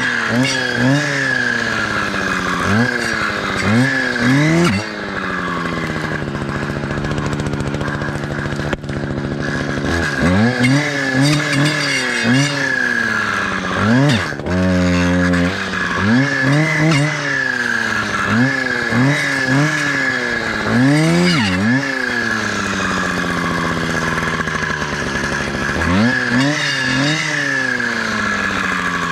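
Two-stroke clearing saw (brush cutter with a circular blade) revving up and dropping back in short bursts, over and over, as it cuts through small birch stems and brush. It settles to a steady idle for several seconds about a fifth of the way in, then goes back to repeated revving.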